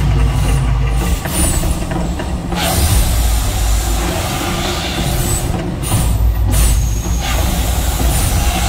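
The volcano attraction's flame jets firing in repeated blasts: a loud rushing noise that cuts off and starts again several times over a deep steady rumble.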